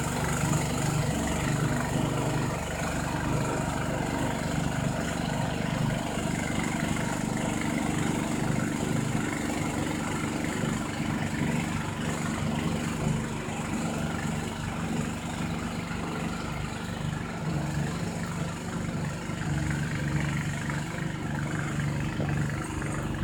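Snowblower engine running steadily at a constant speed.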